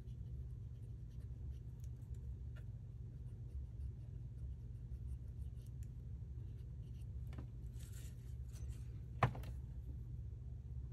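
Small handling sounds of paper crafting: faint scrapes, rubs and taps of paper and tools over a steady low hum, with one sharp click about nine seconds in.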